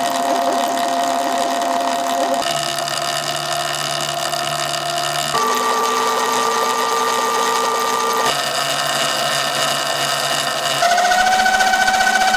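Sur-Ron Light Bee X electric motor and belt drive whining as the rear wheel spins off the ground at a steady speed, the pitch changing in steps every few seconds and rising slightly and getting louder near the end. The belt is tensioned too tight, which makes this loud whine.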